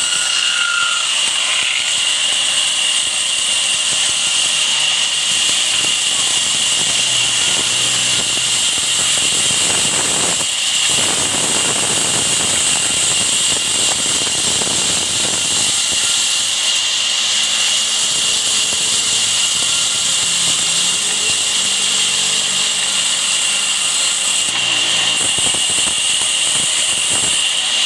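Large band saw running steadily while ripping a rough log lengthwise, a loud sawing noise with a steady high tone from the blade.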